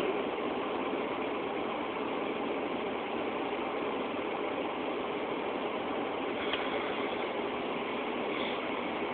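Steady, unchanging engine drone, with a small click about six and a half seconds in.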